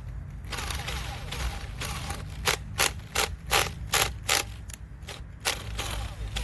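A run of sharp mechanical clicks, about three a second, from the Makita brushless hammer drill as it is handled, not running, after it stalled and cut out under the test.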